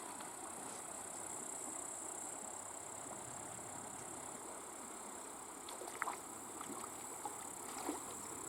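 Steady high-pitched chorus of summer insects shrilling without a break, over a faint low rushing background, with a few small clicks about six and eight seconds in.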